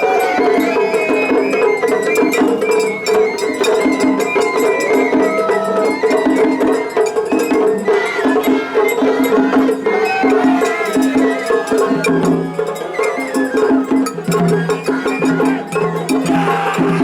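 Two Japanese festival hayashi ensembles playing at once in a competing clash: bamboo flute melodies cross over one another above a steady pattern of drums and clanging hand gongs. About twelve seconds in, a lower repeated note joins the pattern.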